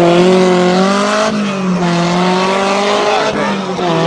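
Rally car engine running hard at high revs, its pitch nearly steady. The pitch steps down slightly about a second in and dips briefly near the end.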